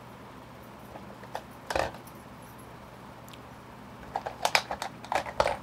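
Makeup products being handled: a single knock about two seconds in, then a quick run of small hard clicks and clatters near the end as products are put down and picked up.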